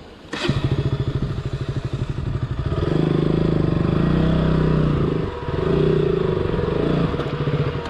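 Motorcycle engine revving hard under load, with a sharp knock just as it picks up. The revs climb and grow louder about three seconds in, dip briefly, then pick up again before falling away near the end.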